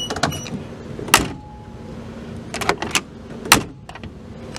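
The door of a 1963 Chrysler New Yorker wagon being shut and its chrome push-button handle and latch worked: a series of sharp metal clicks and clunks, the loudest about a second in and again about three and a half seconds in.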